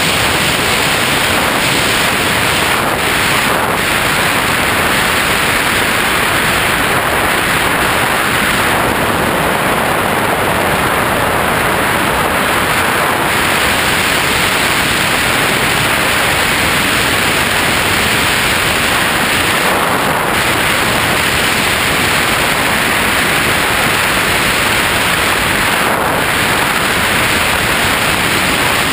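Steady, loud rushing noise of wind blowing over a GoPro camera mounted on a Bixler RC plane in flight.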